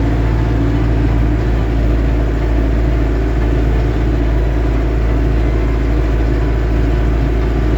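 Lovol M504 tractor driving at speed, its engine and transmission running steadily with a constant drone and hum. The noise comes from the gearbox above 25 km/h, and its cause is unknown to the owner.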